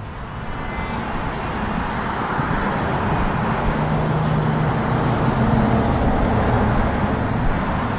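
A motor vehicle driving past: engine and tyre noise that swells slowly over several seconds and eases a little near the end.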